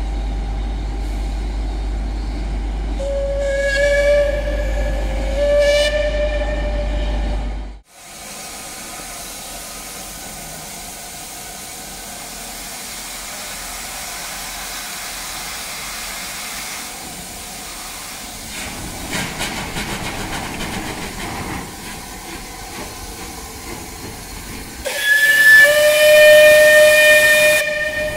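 Whistle of the Southern Railway Merchant Navy Class steam locomotive 35018: two short blasts a few seconds in, then steady steam hiss as the engine draws slowly past, and a long loud whistle near the end.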